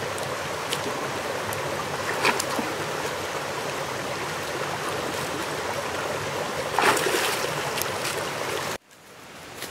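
Steady rush of spring-fed water in a pool, with a couple of sharp splashes as a dog paddles and climbs out onto the rock ledge. The water sound cuts off suddenly near the end.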